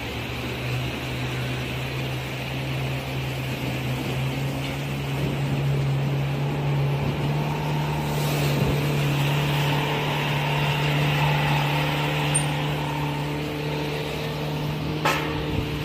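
A steady motor hum over a rushing noise, swelling a little and then easing; near the end, two sharp clicks.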